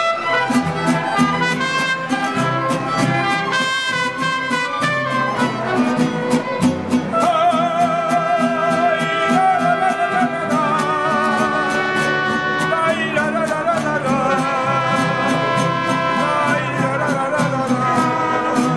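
Mariachi ensemble playing live: guitarrón bass notes under strummed vihuela and guitars in a steady rhythm, with trumpet and wavering melody lines above.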